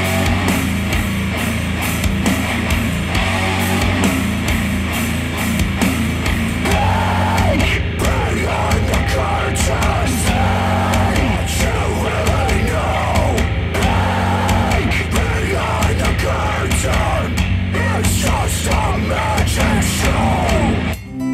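Loud rock song played through a pair of Elac DBR62 bookshelf speakers, with singing coming in about seven seconds in.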